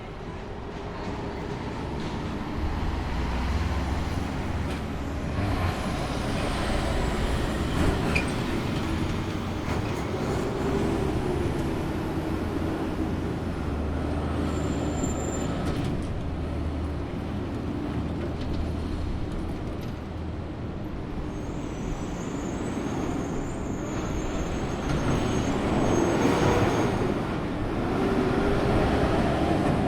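City street traffic: a steady wash of vehicle noise with the low rumble of heavy engines, and a few brief high-pitched squeals through the middle and later part.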